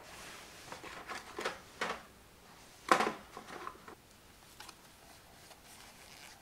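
Handling noise of a compact film camera and a film box being taken from a shelf and picked up: soft rustles and a few light clicks and knocks, with one sharp knock about three seconds in.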